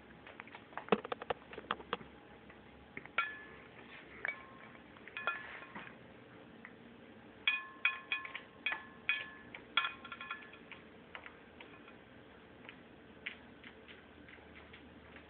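Intermittent clinks and taps on a ceramic dinner plate, the louder ones ringing briefly. They come as a cluster of sharp taps about a second in, scattered clinks after that, and a quick run of ringing clinks in the middle.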